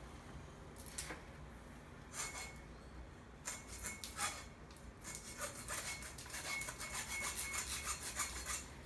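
A blade scraping and sawing back and forth against a rock-hard frozen fish, in a run of rasping strokes that come thicker and quicker over the second half. The fish is frozen solid, too hard for a knife to cut into.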